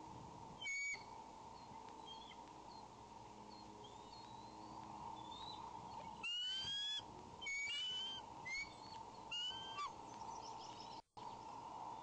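Adult bald eagle calling: a short high call near the start, then several quick bursts of high, rising, chattering notes from about six to ten seconds in. Fainter high chirps recur throughout over a steady hum.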